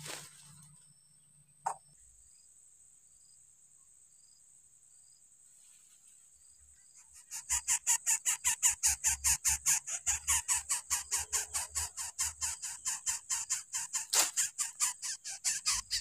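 Coucal nestling begging: a loud, rapid rasping series of about five calls a second that starts about seven seconds in and keeps going. Under it runs a steady high insect trill.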